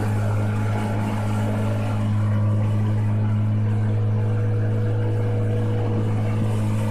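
A small boat's motor running steadily, a constant low hum that does not change in pitch.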